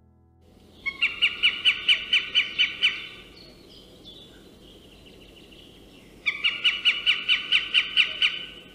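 Two runs of rapid, evenly spaced bird calls, each about ten sharp notes at roughly five a second, with a pause of about three seconds between them.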